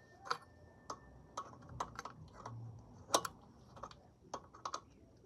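Scattered sharp clicks and light taps at irregular intervals, the loudest about three seconds in: hand tools being handled on a motorcycle during a chain adjustment.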